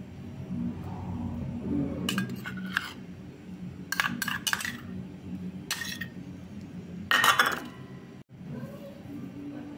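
A metal spoon clinking and scraping against a stainless steel bowl as spoonfuls of black salt and chilli garlic paste are tipped into gram flour. It comes in several short clusters of clinks, the loudest about seven seconds in.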